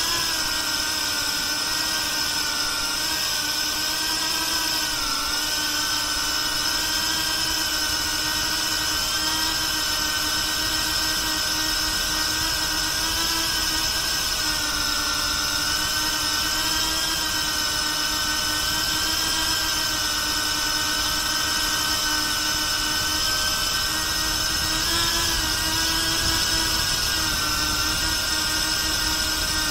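BetaFPV Pavo360 cinewhoop drone's brushless motors and ducted propellers whining steadily in flight, the pitch wavering slightly up and down with throttle, heard close up from the camera riding on the drone.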